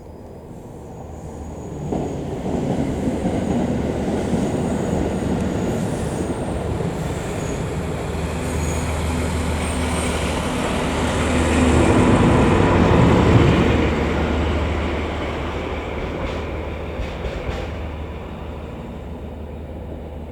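Diesel-hauled train passing, a steady low engine hum with rumbling wheel noise. It builds suddenly about two seconds in, is loudest around two-thirds of the way through, then fades.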